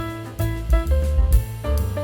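Background music: an up-tempo jazz-style instrumental with drum kit, bass and melody instruments playing short, changing notes.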